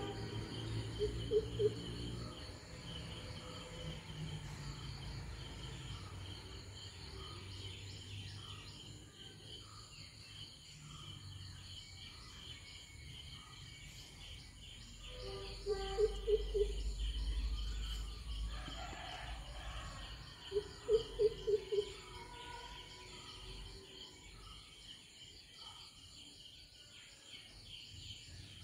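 Insects chirring steadily with a fine, fast pulse throughout. Three times, near the start, about halfway and a few seconds later, a bird gives a low call of four or five quick notes.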